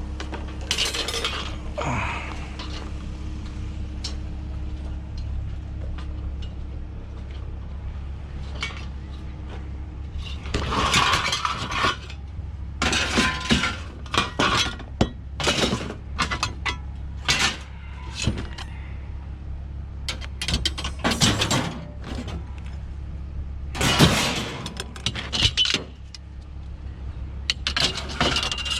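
Hard objects clattering and clinking over and over, like glass or metal knocking together, over a steady low hum.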